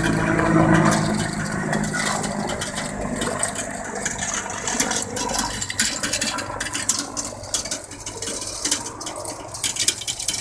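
T129 ATAK attack helicopter's rotor and engine noise, a steady low drone that fades away as the helicopter moves off. Faint crackles are scattered through the second half.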